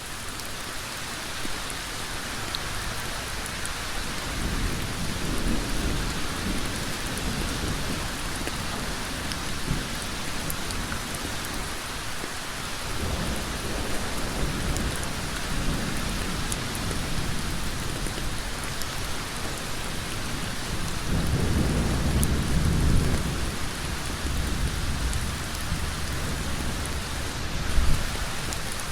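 Heavy rain falling steadily on a road, a dense, even hiss. Underneath it a deep rumble swells and fades several times, loudest a little after three-quarters of the way through.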